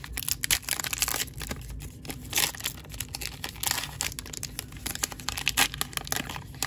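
Wrapper of a 2022 Topps Heritage baseball card pack crinkling and tearing as it is pulled open by hand, in a quick, irregular run of crackles.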